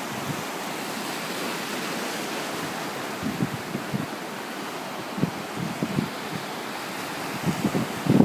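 Steady hiss of wind and surf at the shore, with a few brief low bumps of wind buffeting the microphone in the second half.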